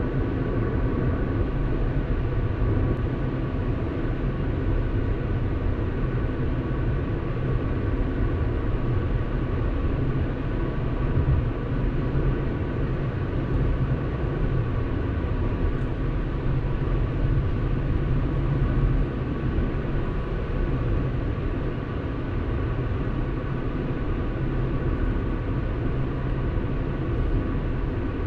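Car driving steadily at road speed: continuous tyre and engine noise with a faint steady whine.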